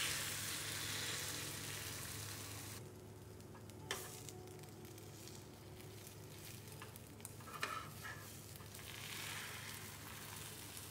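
Beaten egg sizzling in a hot oiled rectangular tamagoyaki pan, loudest as the egg is poured in. The sizzle drops suddenly about three seconds in and carries on quieter, with a sharp tap about four seconds in and a few light clicks near eight seconds from a metal spatula rolling the omelette in the pan.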